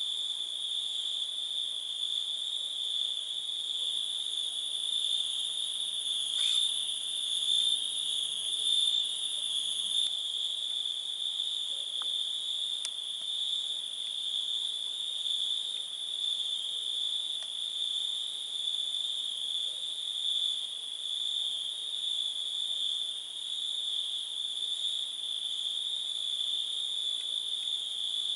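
A chorus of crickets singing at night, one steady, unbroken high-pitched chirring that holds at an even level throughout.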